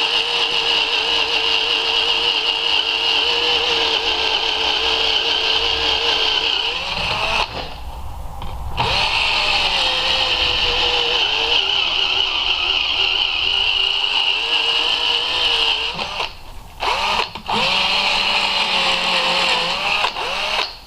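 Cordless drill running as it drills into the BMW M30B30's intake manifold runner, a steady motor whine whose pitch sags a little under load. It stops twice, around the middle and again near the end, and quickly spins back up each time.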